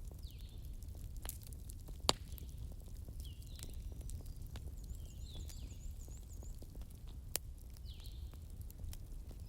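Campfire crackling, with sharp pops (the loudest about two seconds in, another past seven seconds) over a low steady rumble. Birds call in the background: short falling chirps several times and a quick run of high notes midway.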